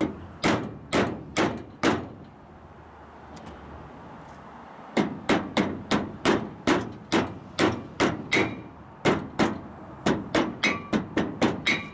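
Hammer tapping a new seal into place on a Dana 44 front axle. Four strikes, a pause of about three seconds, then a steady run of strikes at about two to three a second, some ringing briefly.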